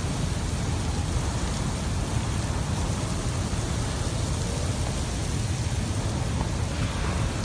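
Torrential rain pouring down in a steady hiss, with a deep rumble underneath throughout.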